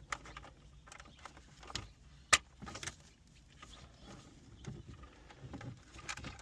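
Dashboard wiring connectors being plugged in, with a sharp plastic click about two seconds in and smaller clicks and rattles of plastic around it.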